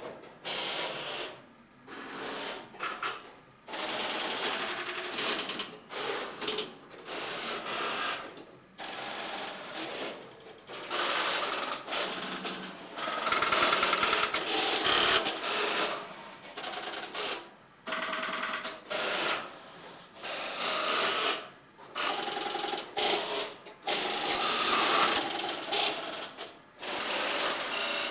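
Tesla P51 electromechanical telephone exchange at work: its relays and switches clatter in irregular bursts of a second or two, with short pauses between, as the switching gear operates.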